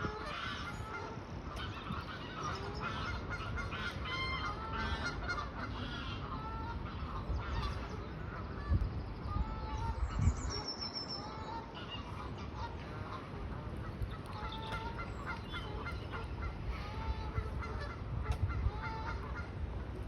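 A flock of large birds giving short honking calls over and over, with a brief high whistle about halfway through.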